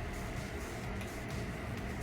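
Electric fan running steadily: an even whooshing noise with a constant low hum and a faint steady whine.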